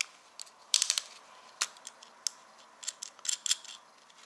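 Irregular sharp clicks and snaps of plastic wiring connectors and cables being handled and plugged together. There is a quick cluster of clicks about a second in and another past the three-second mark.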